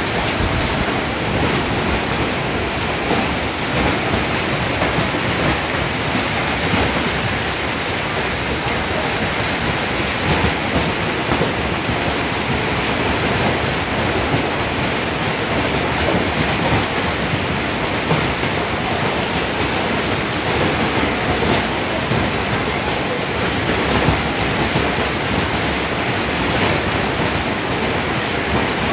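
Hailstorm: hail and heavy rain falling hard, a loud, steady hiss full of small sharp hits of hailstones.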